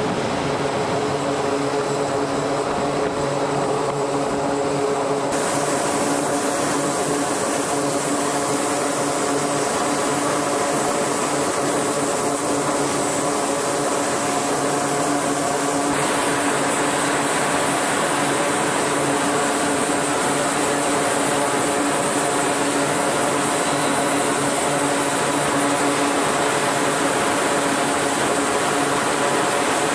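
Carrier aircraft engines running: a loud, steady drone with several held tones and a hiss above them, the hiss shifting abruptly about five and sixteen seconds in.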